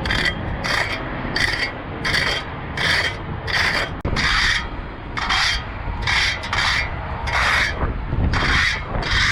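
Hand concrete-finishing tool scraping across wet concrete in steady, rhythmic back-and-forth strokes, about three every two seconds.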